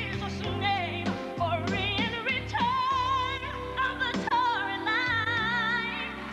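A female solo singer with instrumental backing, holding long notes with a wide, wavering vibrato.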